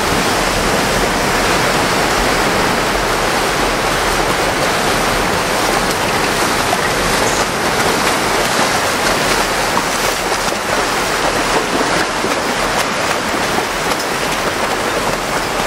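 Seawater rushing and splashing steadily in the surf close by, with a low rumble of wind on the microphone.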